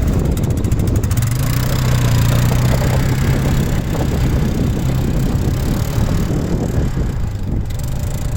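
ATV engine running at a steady pitch during a ride, with a rough rumble over the steady hum.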